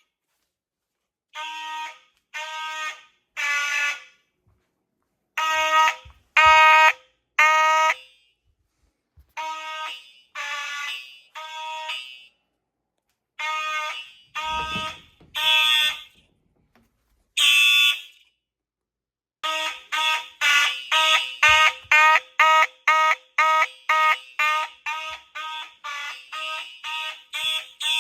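Fire alarm horns sounding in uneven, stop-start blasts of varying length with gaps between them, then about two-thirds of the way in settling into a fast steady pulse of about two blasts a second. The faltering sound is put down to a bunch of devices loading the circuit.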